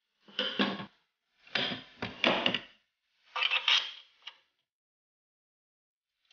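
Tristarbot M1 3D printer's heated-bed carriage shoved back and forth by hand along its steel guide rods, in three rough sliding strokes with knocks. It does not run freely: the rods were bent in shipping and the carriage sticks.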